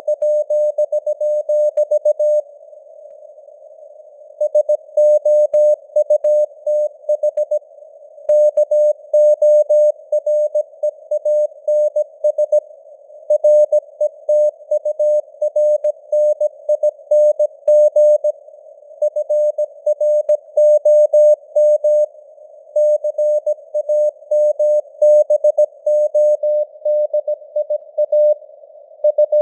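Morse code sent as a single beeping tone keyed on and off at 17 words per minute: dots and dashes in groups with short pauses between words. A faint hiss of simulated radio noise runs under the tone.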